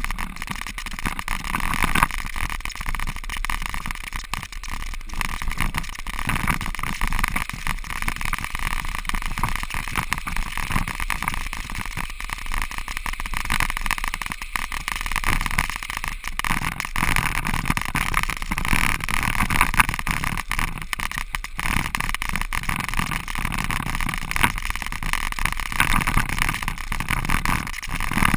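Bicycle tyres rolling across frozen lake ice, with wind on the microphone: a steady rushing noise that swells and dips a little.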